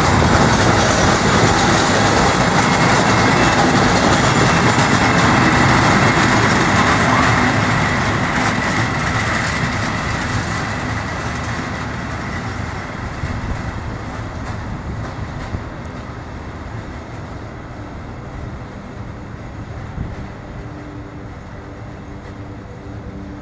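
Freight train wagons rolling past on the track: a steady rumble and clatter of wheels on rails that fades gradually from about a third of the way in as the train draws away.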